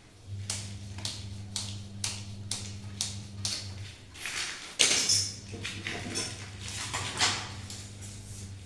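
Light clicks and knocks, about two to three a second, with one sharper knock about five seconds in, over a steady low hum: a CPVC pipe and its fitting being handled and moved about.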